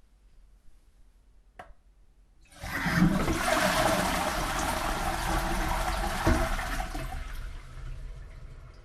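Toilet flushing. A click of the handle comes about a second and a half in, then a sudden loud rush of water that runs for about four seconds and fades away near the end, with a knock partway through.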